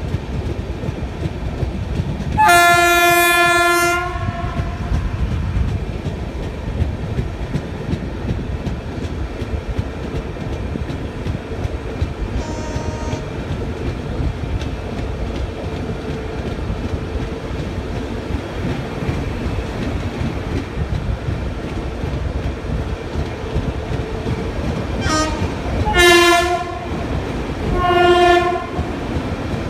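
Train running on the track with a steady rumble. A locomotive horn gives one long blast about two and a half seconds in and a faint short toot around twelve seconds. Near the end it sounds a short toot and then two louder blasts.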